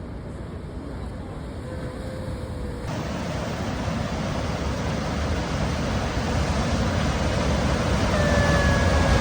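Steady rushing noise that grows louder throughout, changing abruptly about three seconds in, with a faint thin whistling tone near the end.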